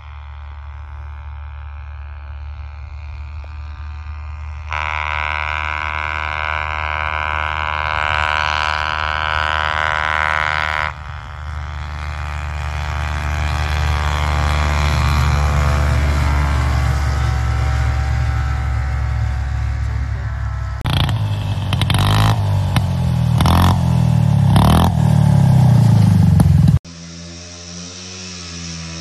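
Snowmobile engines across a string of short clips. A sled far off grows louder as it approaches, and a vintage snowmobile's engine runs and climbs in pitch. Then an engine revs hard with sharp, repeated rev spikes, and after a sudden cut near the end a quieter sled engine runs unevenly.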